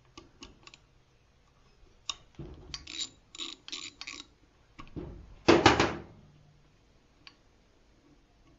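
Ratchet wrench clicking in short runs as a socket backs out the magneto bolts, with one louder metallic clatter about five and a half seconds in.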